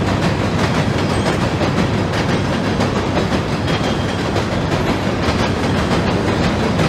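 HO scale model freight cars, autoracks and a caboose, rolling along the track on a model trestle bridge: a steady rumble of small wheels thick with rapid fine clicks.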